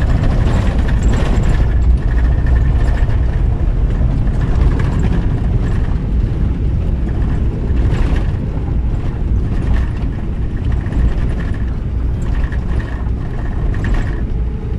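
A moving vehicle heard from inside its cabin: a steady low rumble of engine and tyres, with scattered knocks and rattles as it drives.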